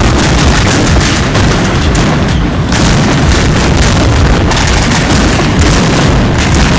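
Fireworks display: a loud, dense barrage of aerial shells bursting, bangs and crackles packed closely together with no pause.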